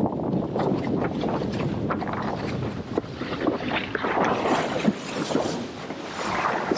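A windsurf board sailing fast over choppy water in strong wind: wind buffets the action-camera microphone over the rush of water, with irregular slaps and splashes of the board against the chop, one sharper hit a little before five seconds in.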